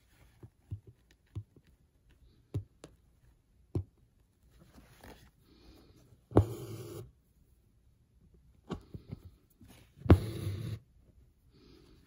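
Hand embroidery on a cap's twill fabric: embroidery floss is pulled through the cloth twice, about six and ten seconds in, each pull a noisy sound of around half a second. Between the pulls come light clicks and taps of the needle piercing the fabric.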